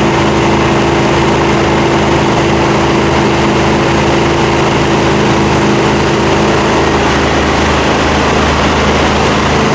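Trailer-mounted pressure washer's gas engine and pump running steadily under test.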